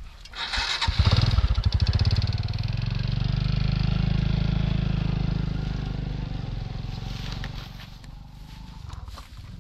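A small engine starts up with a burst of rapid firing about a second in, then runs steadily and grows fainter, dropping away near the end.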